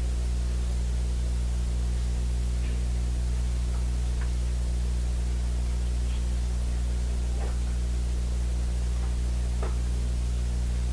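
Steady electrical hum with hiss from the microphone and sound system, with a few faint ticks scattered through.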